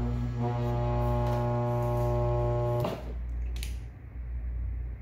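Single-phase washing machine motor humming loudly on live power, a steady electrical hum, the sign of its burned-out start windings. The hum cuts off abruptly about three seconds in as the plug is pulled, and a click follows.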